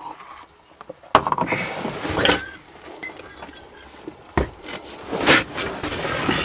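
Chrysler van's starter motor cranking the engine in short, uneven bursts without it catching, on a battery low on charge. A sharp click about a second in and another knock past four seconds.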